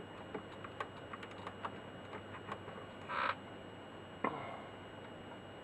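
Faint, scattered small clicks and taps from wires and small tools being handled at a workbench, with a brief rustle about three seconds in and a sharper click just after four seconds.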